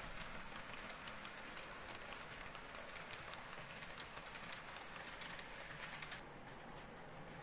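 Model railway freight wagons rolling along the track: a steady rattle with rapid fine clicking, which stops abruptly about six seconds in.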